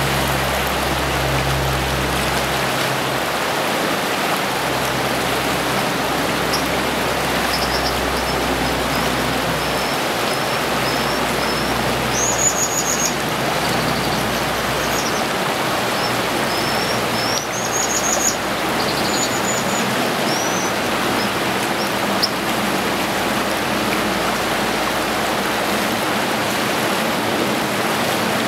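Fast river water rushing steadily, with a scatter of short, high-pitched bird calls from about six seconds in until about twenty-two seconds in.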